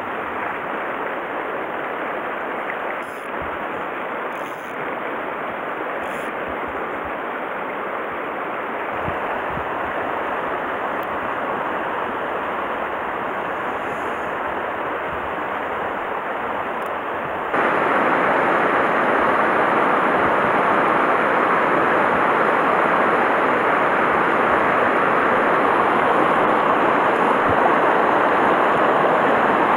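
Shallow river running fast over rocks in a riffle, a steady rush of water. About two-thirds of the way through it steps up suddenly to a louder rush.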